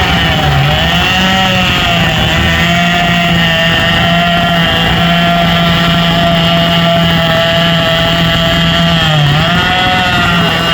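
Racing hot saw (a modified high-powered chainsaw) running flat out with a high, steady engine note, its pitch sagging briefly about a second in and again about nine seconds in before climbing back.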